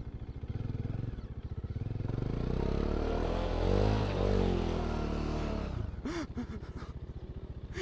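Motorcycle engine running with a steady putter, revving up to a peak about halfway through and then dropping back.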